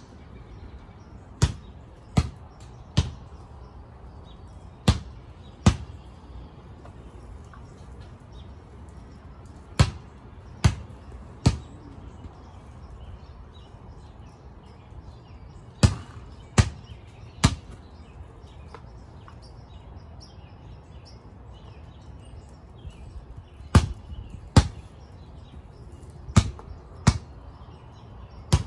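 A basketball bouncing on a concrete driveway, dribbled in short runs of two or three bounces a little under a second apart, with pauses of several seconds between runs.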